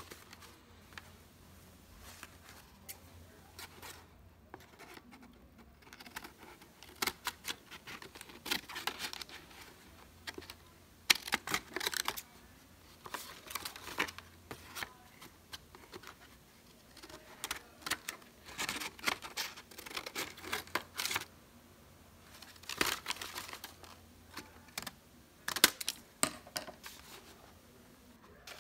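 Scissors snipping construction paper, with the paper rustling and crinkling as it is handled, in bouts with short quiet gaps between.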